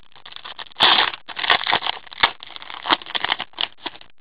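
Foil wrapper of an Upper Deck SPX hockey card pack being torn open and handled, crinkling and crackling in a quick, irregular run of rustles, loudest about a second in.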